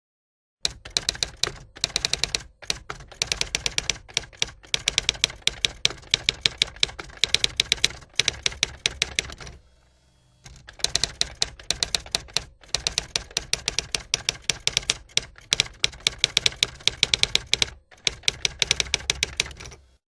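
Rapid typing clatter, many keystrokes a second, in two runs with a pause of about a second near the middle; it starts and stops abruptly.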